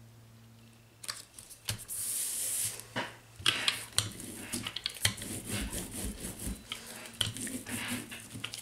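Hand brayer with a rubber roller rolled back and forth over paper laid on a stencil, making repeated scraping, rasping strokes with sharp clicks, starting about a second in.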